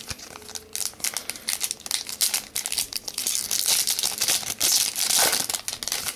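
Foil wrapper of a trading-card pack being torn open and crinkled by hand: a dense run of crackles, loudest about four to five seconds in.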